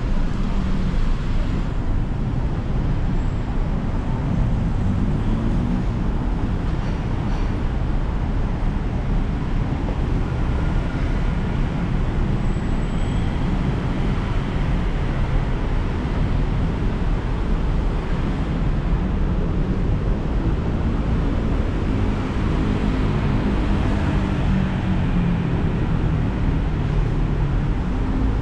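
BTS Skytrain train running: a steady low rumble of wheels and running gear, with a faint low motor tone that glides in pitch a few seconds in and again over the last third.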